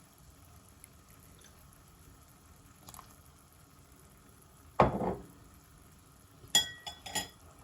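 Thickened gravy simmering faintly in a pan on low heat. A single loud knock about five seconds in, then a few quick metallic clinks with a short ring, like a spoon against the pan.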